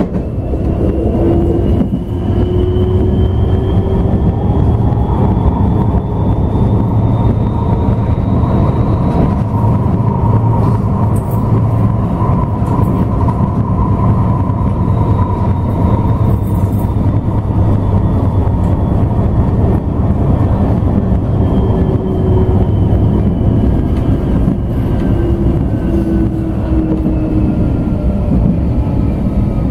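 Bombardier Incentro tram running, heard from inside the passenger car: the traction motors' whine rises in pitch over the first several seconds as the tram picks up speed, holds, then falls away through the second half as it slows, over a steady low rumble of wheels on rail.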